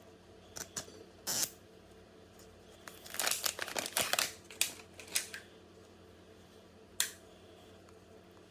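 Hands opening a plastic toy capsule and its wrapping: a few sharp plastic clicks and snaps, then a burst of crinkling and crackling about three to five seconds in, and one more click near the end.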